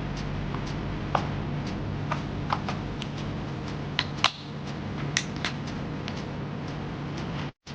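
Scattered small clicks and taps of computer parts being handled and fitted, over a steady low hum; the sound cuts out briefly near the end.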